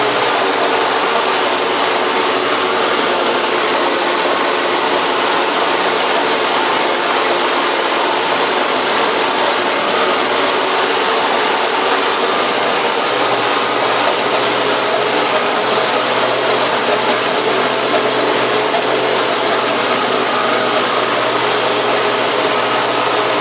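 Belarus 920 tractor's four-cylinder diesel engine running steadily under load while pulling a Kverneland mounted plough, with a steady mechanical clatter and whine at an even pitch.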